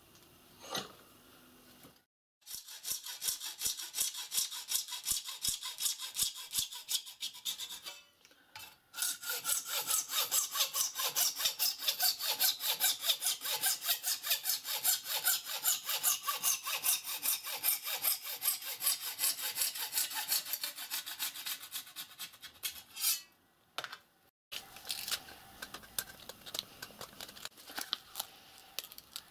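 Hand hacksaw cutting a thin metal sheet clamped in a bench vice, in long runs of steady back-and-forth strokes. Through the longer run the sheet rings with a tone that slowly falls in pitch. Near the end the sawing stops and gives way to quieter handling sounds.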